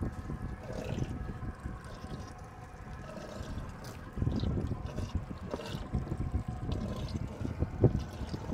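Water sloshing and trickling in a boat's livewell as a dip net is swept through it, louder from about four seconds in, with small knocks and one sharp knock near the end.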